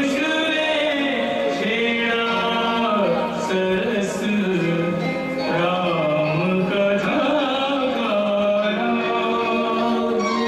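Indian-style song accompanying a stage dance: a singing voice with instruments, the melody gliding without a break.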